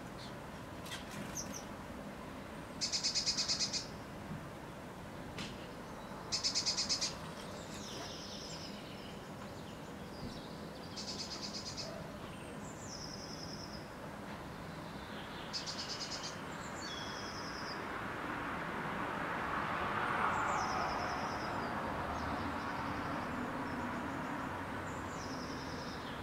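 Blue tit singing: high, thin, falling notes and fast trills, repeated every few seconds. From about the middle, a broad rushing noise swells, peaks about twenty seconds in and slowly fades beneath the song.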